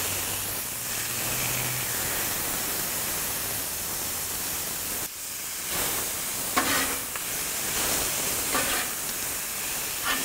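Chimichurri-marinated skirt steak sizzling in beef tallow on a hot steel flat-top griddle, a steady hiss. In the second half a metal spatula scrapes across the griddle a few times as the meat is spread and turned.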